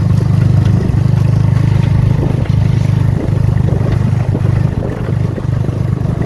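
Off-road hunting kart's engine running steadily while the kart drives along a dirt track, with a few light rattles from the frame.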